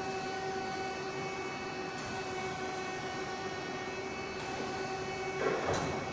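VTEC NF-8239 double column machining center running under power: a steady machine hum and whine holding one pitch, with a short rush of noise about five and a half seconds in.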